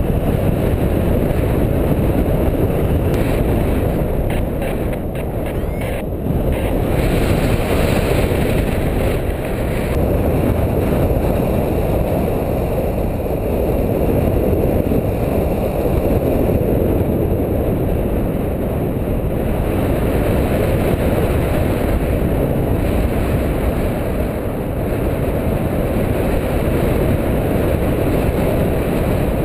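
Wind rushing over the microphone of a paraglider's harness-mounted camera in flight: a loud, steady, low rumble.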